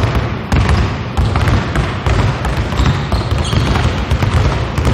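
Several basketballs dribbled at once on a hardwood gym floor, with balls passed between players: a dense, irregular run of overlapping bounces.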